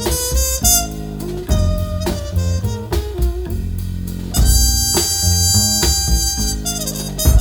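Instrumental break of a bluesy song, with guitar and a long held lead note from about halfway through. It is played back through a homemade three-way speaker: a crude DIY planar-magnetic midrange panel, a panel tweeter and a small woofer.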